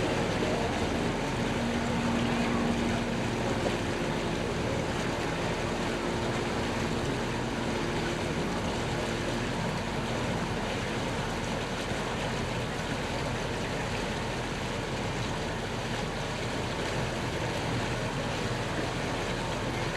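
A motorboat under way: a steady rush of water and wind over the low hum of the boat's engine, with a faint steady tone in the hum that fades out about halfway through.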